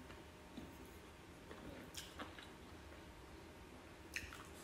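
Quiet eating sounds: faint chewing and a few light clicks of a spoon and fingers working rice on a plate, the clearest near the end.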